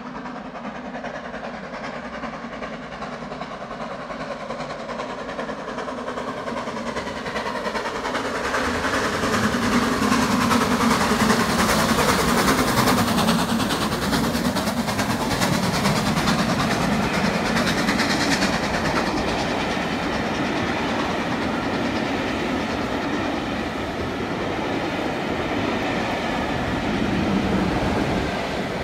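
Steam locomotive with a passenger train approaching and running through at speed under power, the sound swelling from about eight seconds in and loudest as the engine passes, then the carriages rolling past on the rails in a steady run.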